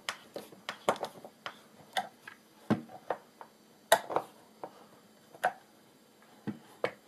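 Irregular sharp clicks and wooden knocks as a screw is driven by hand screwdriver into a wooden pedal frame, then the wooden pedal board is pressed down on its pivot, which moves with a little friction.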